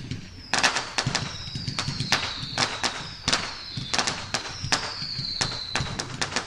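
Fireworks ambience: irregular sharp pops and cracks from bursting shells and firecrackers, with several light screamers whistling, each gliding down in pitch over about a second.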